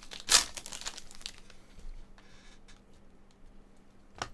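Foil wrapper of a Panini Prizm basketball card pack crinkling and tearing as it is ripped open by hand, loudest about half a second in and dying away after a little over a second into a soft rustle. A single sharp click near the end.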